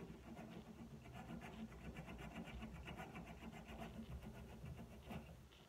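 Sandpaper strip rubbed back and forth around the cork of a clarinet tenon joint: a faint, quick, even scratching of short strokes as the newly glued cork is sanded down to fit.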